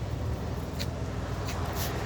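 Steady low rumble of a moving road vehicle, with a few faint clicks or rustles over it.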